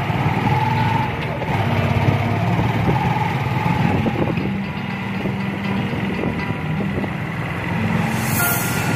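Motorcycle tricycle's engine running as it rides along, with road noise. A short high hiss comes just before the end.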